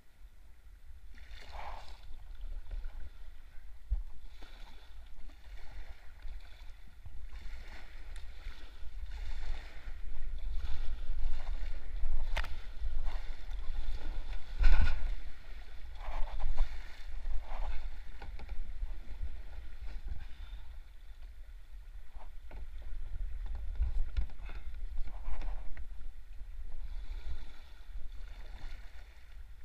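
Kayak paddle strokes dipping and splashing in shallow river water, a swish every second or two, over a steady low rumble. A few sharp knocks stand out, the loudest about halfway through.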